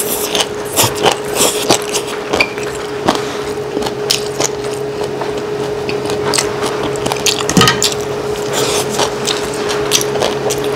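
Close-miked eating: chewing ring-cut gopchang (grilled intestines) on kimchi fried rice, with many short clicks and smacks, over a steady faint hum.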